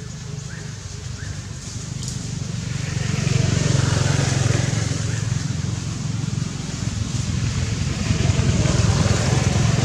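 A motor engine running with a low rumble, growing louder about three seconds in and staying loud.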